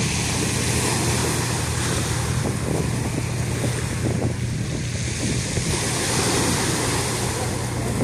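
Small sea waves breaking and washing up a pebble shore, with wind on the microphone adding a steady low rumble.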